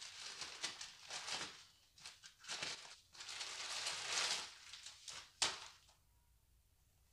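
Black plastic mailing bag crinkling and rustling in a series of bursts as it is unwrapped by hand, with one sharper crackle about five seconds in.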